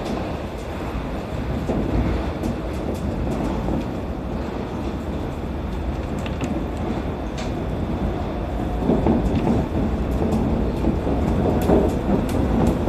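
Running noise of a Shonan Monorail suspended (SAFEGE) car, its rubber-tyred bogies rolling inside the overhead box-girder track, heard from the driver's cab: a steady rumble with light clicks and rattles. It grows louder about nine seconds in.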